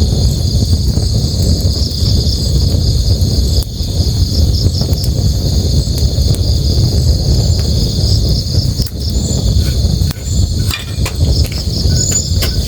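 Crickets chirping in a steady, pulsing high chorus over the low, constant rush of a river. A campfire gives occasional sharp crackles and pops, more of them near the end.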